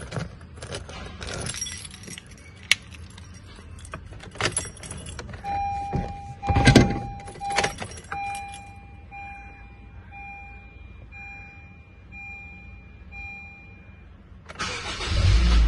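Car keys jangling and clicking, a thump about six seconds in, then the Honda Civic's warning chime as a steady tone that turns into a string of short, evenly spaced beeps. Near the end the engine starts and keeps running.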